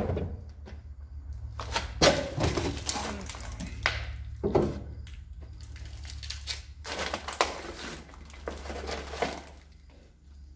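Footsteps crunching and scuffing over debris on a littered floor, in irregular cracks and scrapes, with a steady low hum underneath.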